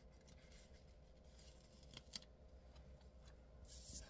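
Near silence with faint paper handling. Near the end, a short rustle as a disc-bound planner page is lifted and moved.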